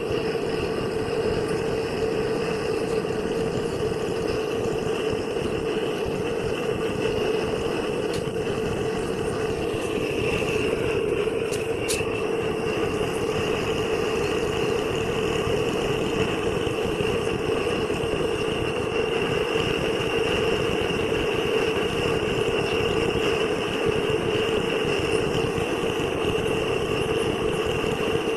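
Gas welding torch flame burning with a steady hiss, welding a refrigerator evaporator.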